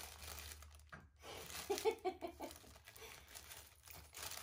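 Cellophane gift bag crinkling and rustling as a capuchin monkey pulls a present out of it, with irregular crackles. A short run of brief pitched calls comes about two seconds in.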